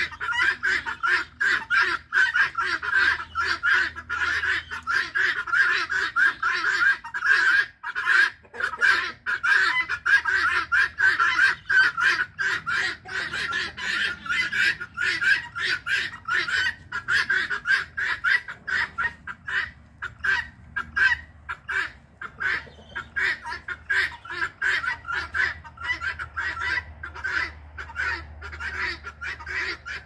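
A flock of domestic guinea fowl giving their harsh alarm squawk: rapid calls overlapping with no break, densest in the first half and a little more spaced later. This is the alarm they raise when they feel threatened, including when people come near.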